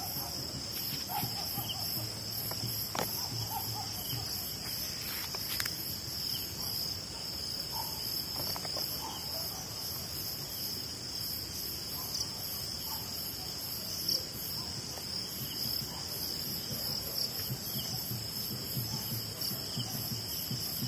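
Night insects, such as crickets, chirping in a steady high shrill, with a faster pulsing trill above it. A couple of faint clicks and a few faint short lower calls come through beneath it.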